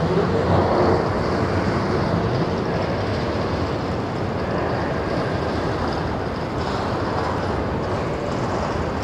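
Empty covered hopper grain wagons of a freight train rolling past, a steady noise of steel wheels on rail.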